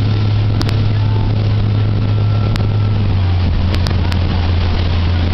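Motorboat engine running steadily at speed under the load of a towed tube: a low, even drone over the rush of wake and wind. The engine note drops slightly a little over three seconds in.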